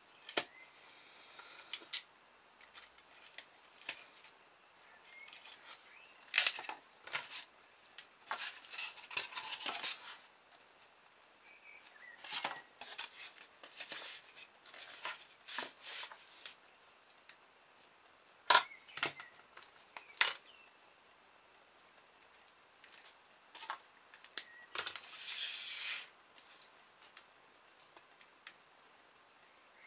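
Polystyrene foam trays and a metal ruler being handled on a workbench: scattered sharp clicks and taps, the loudest two about six and eighteen seconds in, with a few short scraping rustles, the longest about a third of the way in and again near the end.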